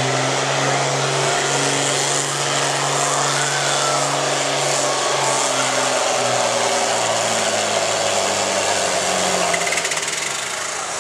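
John Deere farm-stock tractor's diesel engine running hard under full load while pulling a weight-transfer sled, its pitch sagging gradually in the second half as the sled bears down.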